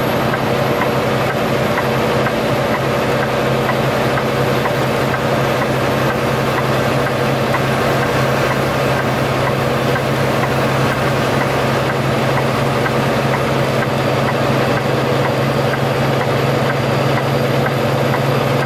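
Semi truck's diesel engine and road noise running steadily, heard from inside the cab while cruising on the highway.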